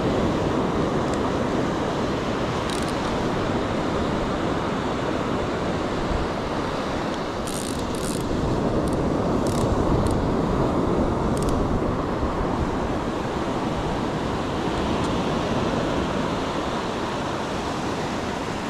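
Ocean surf washing up on the beach with wind buffeting the microphone, and a few short clicks about halfway through.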